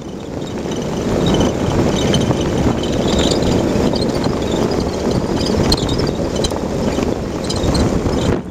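Steady road and wind noise of a moving car, with short high-pitched squeaks now and then: the squeak the owner is trying to trace.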